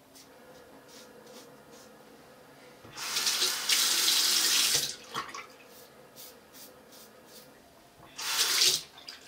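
Bathroom tap running into the sink in two bursts: one of about two seconds a few seconds in, and a shorter one near the end, as during rinsing in a wet shave with a double-edge razor. Faint strokes of a razor on stubble come before the first burst.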